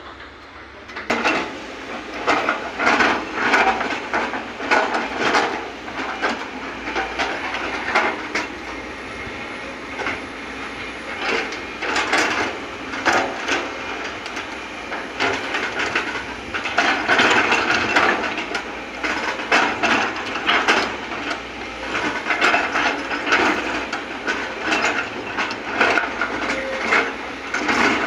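Sumitomo crawler excavator at work digging and loading soil: steady engine and hydraulic noise with frequent irregular clanks and knocks from the bucket and falling dirt, starting about a second in.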